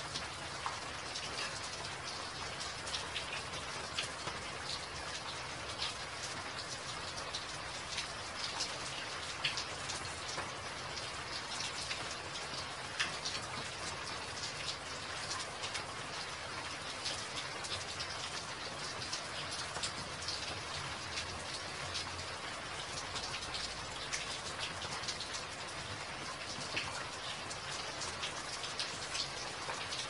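Steady rain falling on a wet, puddled walkway: a continuous even hiss dotted with many small drop ticks and splashes.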